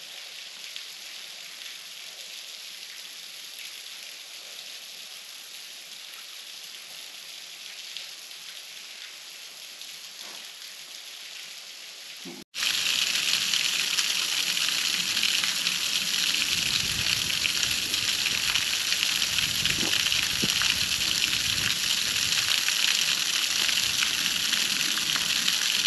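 Small waterfall running low, a steady rush and splash of falling water. The sound jumps much louder about halfway through.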